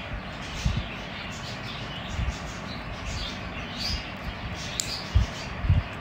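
Budgerigar giving faint short chirps while held in the hand for a beak trim, over soft handling bumps and one sharp click a little before five seconds in.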